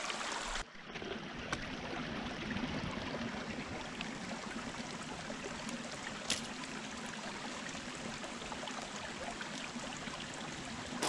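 A small stream running steadily, with a few sharp pops from a wood fire burning close by.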